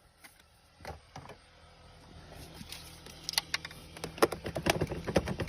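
Irregular sharp metallic clicks and clinks of hand tools being handled while working on a car, starting about halfway through and growing denser, over a faint steady hum.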